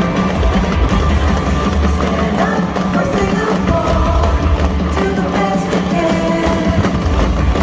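Loud music with a heavy, steady bass line and a melody, playing over the show's sound system.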